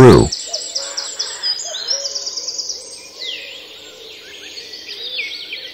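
Background birdsong: several birds chirping, with quick trills of repeated high notes and a few lower notes underneath.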